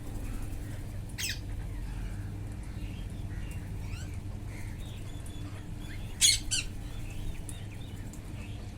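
Wild parrots squawking: two loud, harsh squawks, one about a second in and a louder one about six seconds in, with softer calls between, over a steady low rumble.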